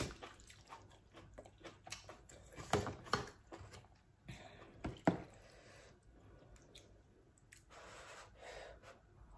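Close-up mouth sounds of eating noodle soup: chewing and lip smacks with scattered small clicks. Soft breathy hiss comes about midway and again near the end.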